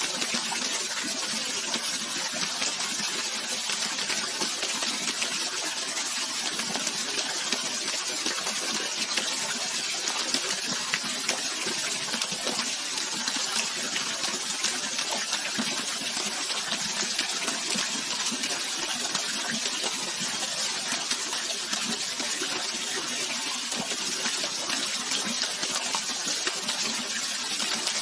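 Steady, unbroken rush of running water, like a waterfall or river, with no change in level.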